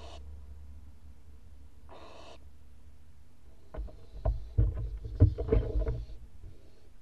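Two short hissing screeches from a barn owl, then a flurry of knocks and scraping as an adult barn owl lands on the wooden nest box roof with a food delivery and the owls shuffle about on the wood.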